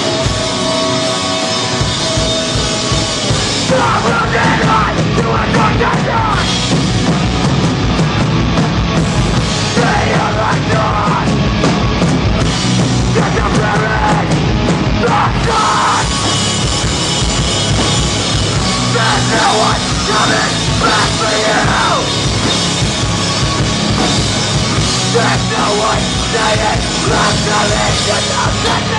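Hardcore punk band playing live, with distorted guitar and drums and shouted vocals that come in about four seconds in.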